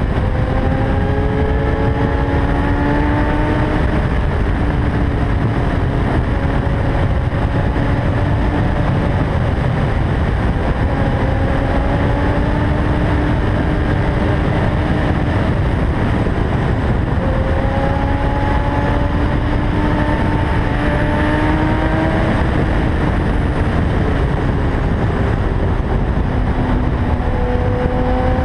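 Heavy wind rush on a helmet camera over a Kawasaki ZX-10R sport bike's inline-four engine, ridden at speed. The engine note climbs slowly, then drops back and climbs again about five times.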